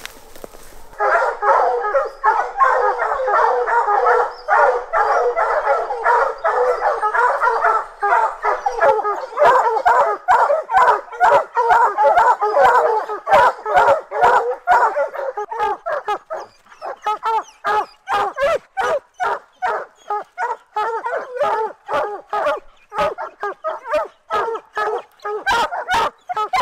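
A pack of hounds tree-barking at a black bear they have treed. A dense chorus of many dogs starts about a second in, then after about fifteen seconds thins into separate barks, several a second.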